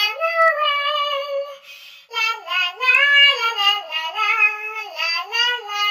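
A woman singing in a high voice, the melody gliding up and down, with a short break about two seconds in.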